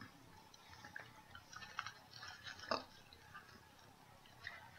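Faint wet mouth sounds of a jelly bean being chewed, with scattered small clicks and squishes.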